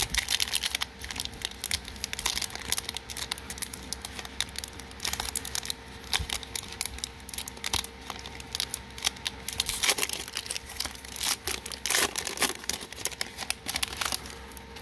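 Foil wrapper of a Magic: The Gathering collector booster pack being torn open and crinkled by hand: a dense, continuous crackling, with the sharpest tears about halfway through and again near the end.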